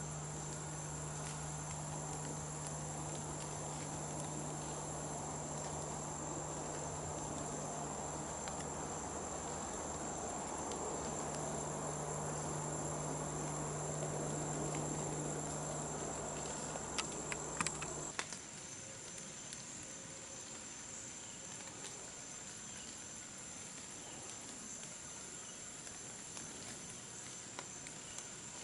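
Insects calling in a steady, high-pitched drone. For most of the first two-thirds a rushing noise with a low hum lies under it, then stops abruptly just after a few sharp clicks.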